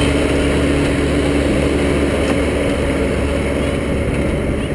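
A vehicle engine running steadily with an even, low drone and a constant hum, heard close up.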